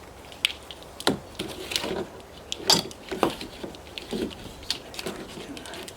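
Handling noise from the trolling motor's power cord and its heavy-duty plastic quick-release plug being moved about: a string of irregular clicks, taps and short rustles.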